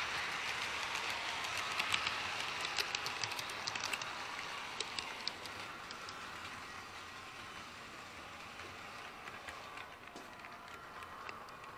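HO-scale model coal train rolling along the track: a steady rolling hiss of wheels on rail, with a run of sharp clicks over rail joints in the first few seconds, fading gradually.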